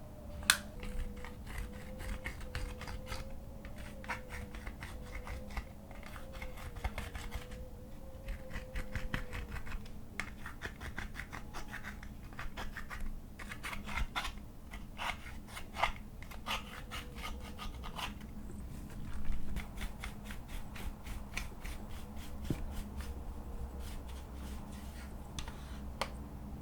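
Slime being worked by hand, giving off runs of quick crackling clicks that come in clusters with short pauses between.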